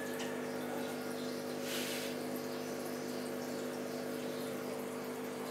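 Aquarium filter pump running: a steady hum under trickling, bubbling water, with a brief hiss about two seconds in.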